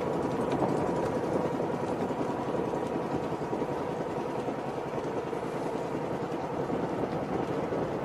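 Steady drone of a boat engine running without a break.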